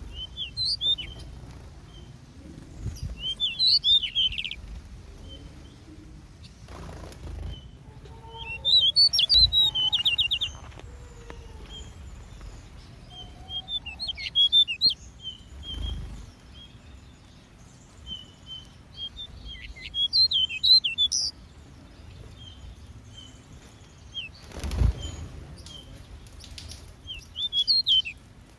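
Small aviary birds chirping: short, high twittering song phrases every few seconds, with single high chips in between and a few brief low thumps.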